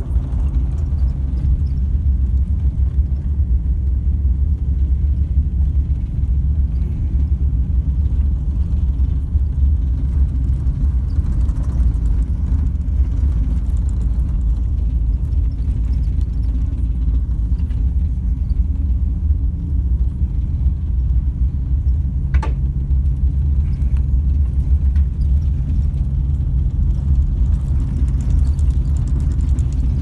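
Steady low rumble of a bus driving, heard from inside the cabin, with one brief click about 22 seconds in.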